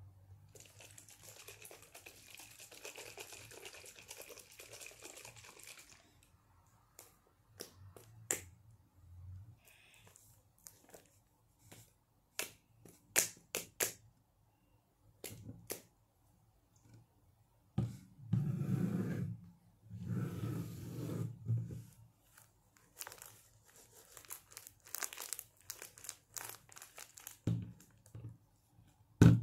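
Close-miked ASMR handling of small plastic cosmetic bottles and caps: a steady rustle for the first six seconds, then scattered sharp clicks and taps, and stretches of louder scratchy rubbing from about 18 seconds in.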